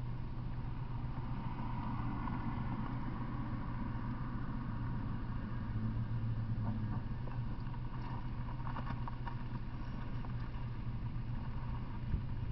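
Engine of a stopped flatbed truck running steadily at idle, a low hum, with a few faint clicks partway through.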